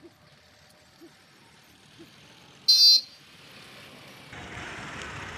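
A short, loud vehicle horn toot, about a third of a second long, near the middle; then the steady noise of a vehicle's engine comes in about four seconds in and keeps on.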